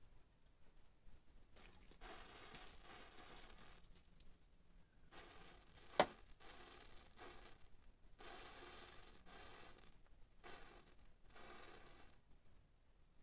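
A chain of matchsticks flaring up in turn, four fizzing, hissing spurts of a second or so each as the heads catch, with one sharp crack about six seconds in.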